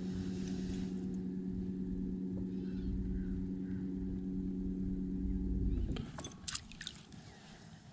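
Electric trolling motor running with a steady hum, then switched off about six seconds in and winding down. A few light clicks follow.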